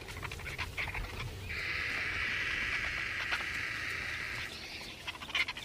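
Vultures squabbling over a carcass: one long hiss of about three seconds starting about one and a half seconds in, with scattered short scratchy clicks around it.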